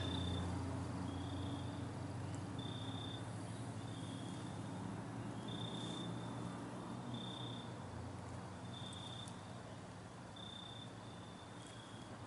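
A cricket chirping slowly and faintly: one short, high chirp about every second and a half, over a low steady hum that fades out about halfway through.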